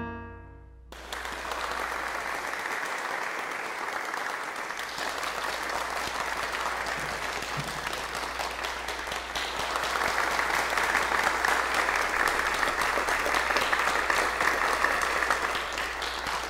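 The last piano chord dies away, and about a second in an audience breaks into steady applause. The clapping grows louder about ten seconds in and keeps going.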